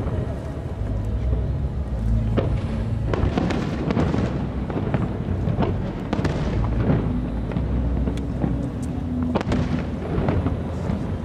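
Aerial fireworks shells bursting in a dense, irregular run of booms and sharp bangs, with continuous low echo carrying between them.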